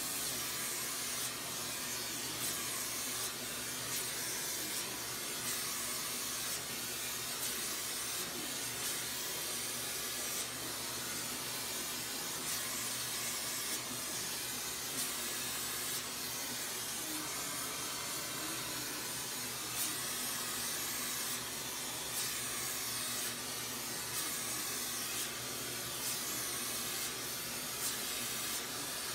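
Gas-oxygen hand torch hissing steadily as its flame heats a glass bulb on a glass lathe.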